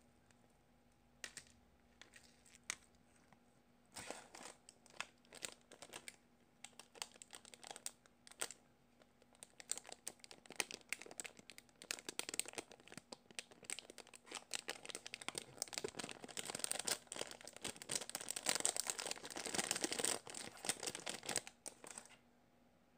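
Clear plastic packaging bag crinkling as a squishy toy is handled inside it and pulled out: a few scattered crackles at first, then dense continuous crinkling that grows loudest near the end and stops about a second before it.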